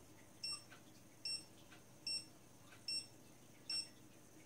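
Dogtrace D-Fence 1001 electronic dog fence receiver collar beeping: short, high beeps about once every 0.8 s. This is the collar's audible zone signal as it sits inside the boundary wire's field.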